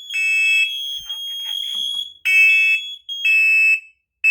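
Interconnected hardwired smoke alarms, set off by the test of a First Alert 9120B, sounding the temporal-3 evacuation pattern: three half-second beeps, a pause of about a second and a half, then three more. A second alarm's steady high tone runs under the beeps and cuts off near the end.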